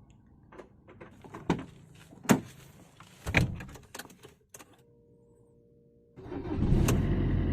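Several separate clunks and knocks from handling a car, the loudest about two seconds in, then background music starts near the end.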